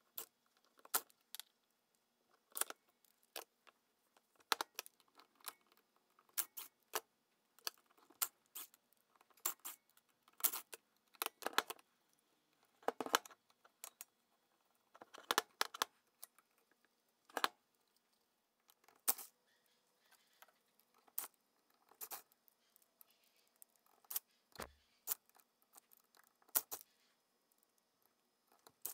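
Screws, a screwdriver and the switch-box cover of a 1930s Syntron electric hammer clinking and clicking against a metal plate as the switch box is taken apart: a string of irregular sharp clicks, roughly one every second or so.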